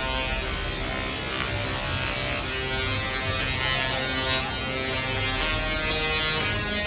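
Linear synchronous motor launch track of Mack Rides' Voltron Nevera roller coaster, buzzing with many steady electric tones that hold and shift to new pitches in steps, like a chord of notes.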